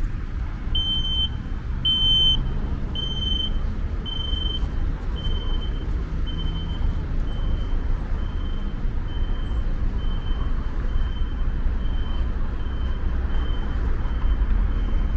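High electronic beeps repeating about once a second over steady road-traffic rumble. The first few beeps are loud and longer, then they turn shorter and fainter.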